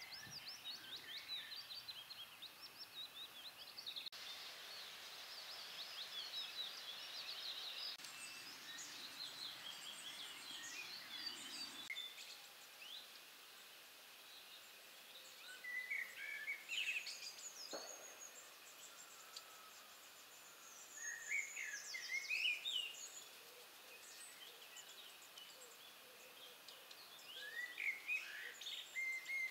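Wild songbirds singing: a continuous run of quick chirping song for about the first twelve seconds, then separate short song phrases at intervals over faint background hiss.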